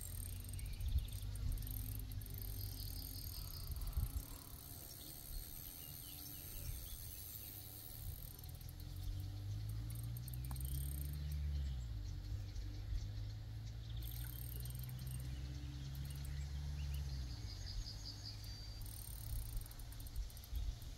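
Insects chirping in high-pitched, on-and-off bursts. A low engine hum comes in about halfway through, holds for several seconds and fades out.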